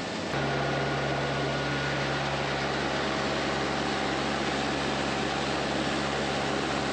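Tractor engine running at a steady speed under an even, loud hiss, with a steady low hum; the sound steps up abruptly about a third of a second in.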